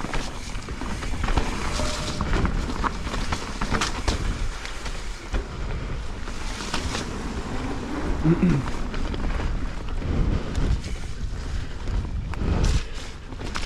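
Mountain bike riding a wet, muddy trail: tyres on dirt with the bike rattling and clicking over bumps, and wind rumbling on the camera microphone.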